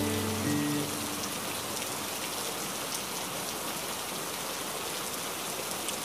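Steady rush of a waterfall, an even hiss of falling water with no breaks. The last held notes of soft background music die away in the first second.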